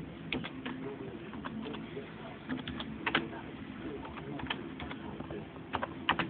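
Irregular clicks of a computer mouse and keyboard, sometimes in quick pairs or small clusters, over a low background hum.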